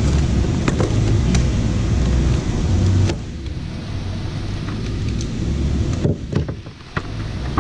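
Clear plastic clamshell packaging crackling and clicking as it is handled and opened, and a coiled cable is pulled out. Under it runs a steady low rumble, which is the loudest sound.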